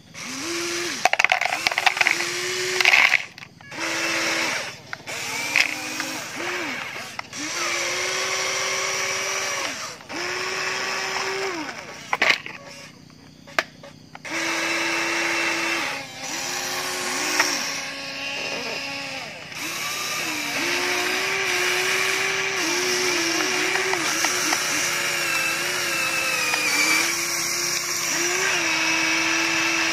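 Small electric motors of a remote-control toy excavator whining in short runs as the boom, bucket and turntable move, each run gliding up in pitch as it starts and down as it stops. Near the end the whine runs on steadily. A few loud clatters of gravel come early on and again about twelve seconds in.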